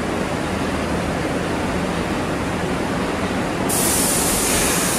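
Steady rumble of a New York City subway train in the station, with a sudden high hiss coming in a little past halfway and holding.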